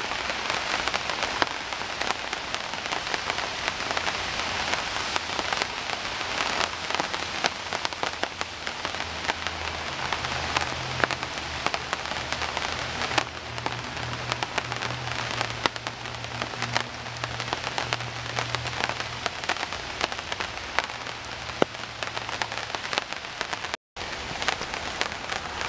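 Steady rain falling, with many sharp drops ticking on nearby surfaces. A low hum joins about a third of the way in and fades out before the end, and the sound drops out for a moment near the end.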